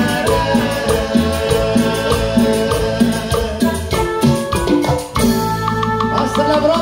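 A live cumbia band playing: congas, drums, keyboard and saxophones. There is a brief drop about five seconds in, then the band carries on.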